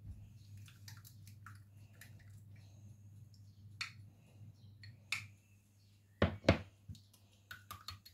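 Light clicks and clinks of kitchenware, then two sharp knocks close together about six seconds in and a few quick clinks just after, as a small bowl and spoon are handled and set down on a tiled counter. A low steady hum runs underneath.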